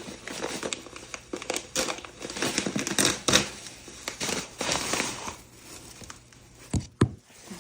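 Plastic packaging crinkling and rustling as it is handled, with many small crackles and two sharper knocks near the end.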